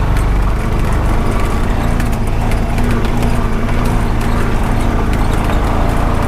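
A Honda Pioneer 520 side-by-side's single-cylinder engine runs steadily under way, with a constant low drone. The machine rattles and clicks over rough ground as it drives.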